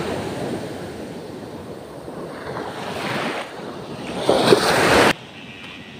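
Small waves breaking and washing up onto a sandy shore, coming in surges, the loudest about four to five seconds in; the sound cuts off suddenly at about five seconds.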